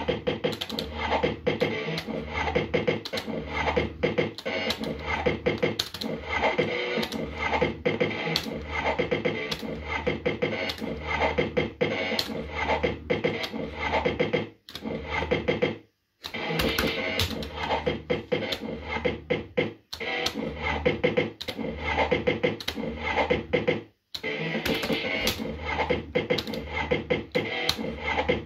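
JPM Red Hot 6 fruit machine running its electronic music and spin sound effects as the reels are played game after game: rapid clicks and beeps over a pulsing beat. The sound cuts out briefly twice, a little past halfway and again about two thirds through.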